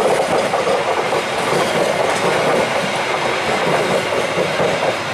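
Passenger train coaches rolling past close by: a steady rumble and rattle of steel wheels on the rails.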